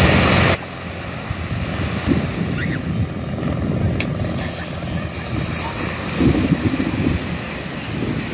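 Wind buffeting a phone's microphone in a low, uneven rumble, with small waves washing onto the shore; the rumble is loudest for the first half second.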